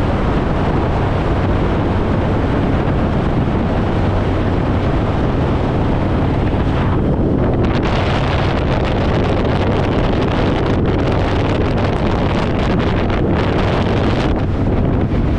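Heavy wind buffeting the microphone over a steady low engine drone.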